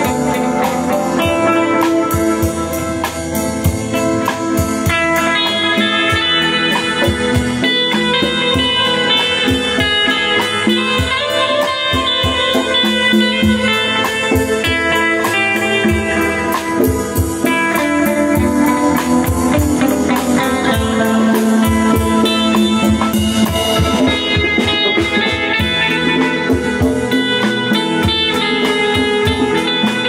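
A live band playing a bluesy instrumental: a Fender Stratocaster electric guitar leads with sustained, bending notes over a steady drum-kit beat.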